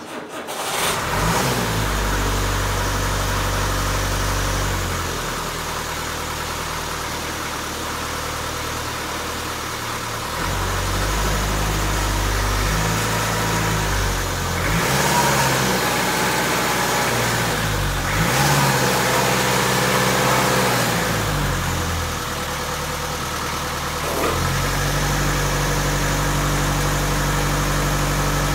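A 1962 Land Rover Series 2A's 2.25-litre four-cylinder diesel engine catches about half a second in after cranking, then runs with the revs rising and falling in steps several times, settling into a steady run near the end.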